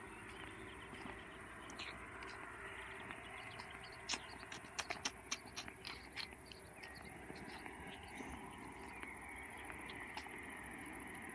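Quiet outdoor ambience with a faint steady hiss. A run of sharp clicks and taps comes about four to six seconds in.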